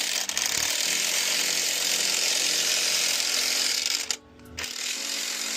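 Impact wrench hammering on a wheel lug nut in a long, steady burst, stopping briefly about four seconds in and then running again more quietly. The nut is being worked through an unsteady wheel-lock socket set-up, a way that could damage the lug nuts.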